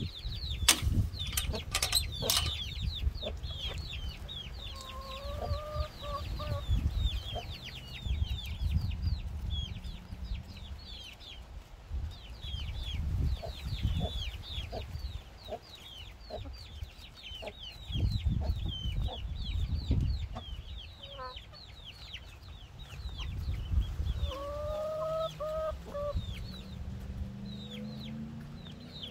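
Backyard hens clucking while they peck at a watermelon, with two drawn-out lower hen calls, one about five seconds in and one near the end. A constant stream of quick high chirps and an uneven low rumble run underneath.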